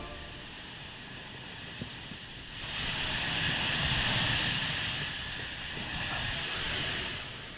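A steady hiss of poison gas being sprayed over a low rumble. It swells about two and a half seconds in and eases off near the end.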